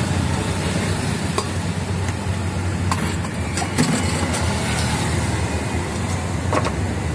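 Steady low rumble of road traffic or engines, with a few sharp clinks of a steel ladle knocking against a steel pot as chole are mixed.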